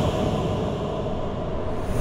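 Sound-design effects laid under FPV drone footage: a long whoosh over a deep rumble, slowly fading.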